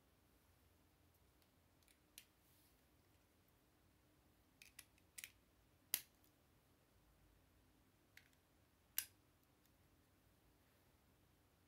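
Plastic Lego bricks clicking as pieces are pressed and snapped together by hand: a handful of separate sharp clicks spread through a quiet background, two of them louder than the rest.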